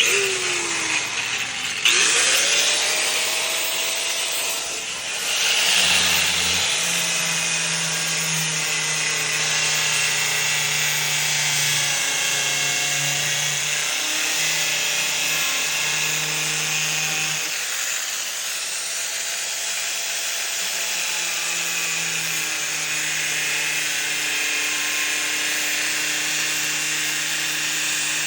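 Handheld power tool running and cutting a slot into a vending machine's plastic panel. It starts abruptly and keeps going steadily, its pitch drifting slightly as it cuts.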